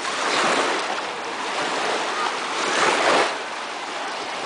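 Small lake waves breaking and washing over the shallows, the rush of water swelling twice and easing off in between.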